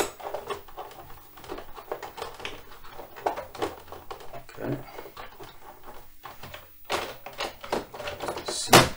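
Commodore MPS 803 dot-matrix printer handled by hand as paper is fed in: a string of small plastic clicks and knocks, with one sharper knock near the end.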